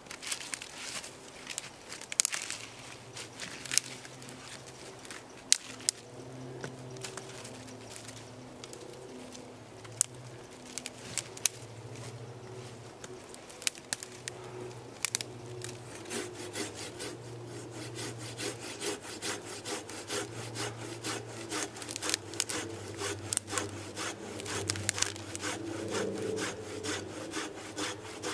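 Wood being sawn by hand in repeated back-and-forth strokes, with many scattered sharp clicks and snaps. The strokes come more evenly in the second half, about two a second.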